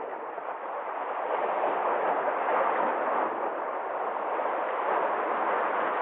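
Sea waves washing in and breaking against shore rocks: a steady rushing of surf that builds about a second in and surges twice.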